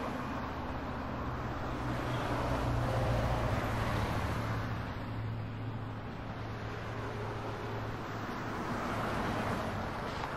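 Steady road and engine noise heard from inside a moving vehicle at highway speed: a constant low hum under a wash of tyre and wind noise.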